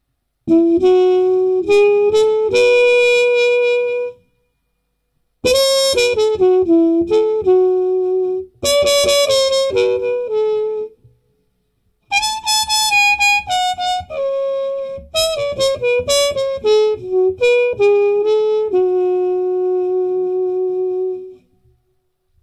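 A solo wind instrument playing a melody, one note at a time, in three phrases separated by short silent gaps.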